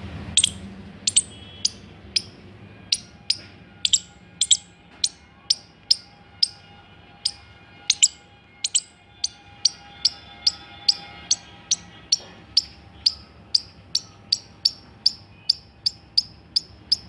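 Squirrel giving a long series of sharp, high chirping calls, about two to three a second, quickening in the second half.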